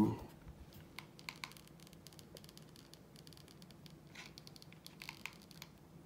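Faint handling noises of cut furnace-filter pieces on a table: light scratching and rustling with scattered short clicks, a few sharper ones about a second in and again near the end.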